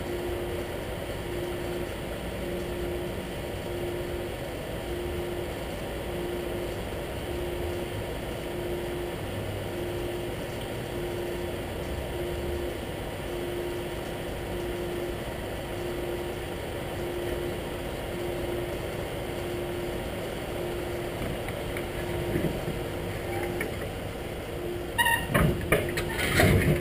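Heavy truck's diesel engine running steadily, with a low beep repeating about once a second. Near the end, a burst of loud knocks and clatter as the truck gets under way.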